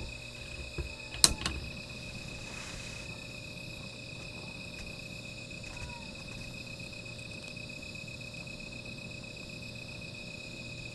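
Night insects trilling steadily in one high, unbroken tone. A single sharp click comes about a second in, followed by a smaller one and then a short hiss.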